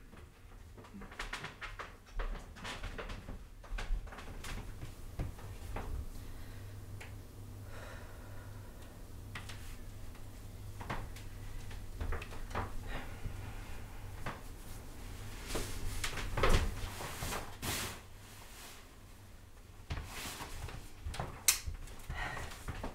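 Footsteps with scattered small knocks and clicks, irregularly spaced, over a faint steady low hum.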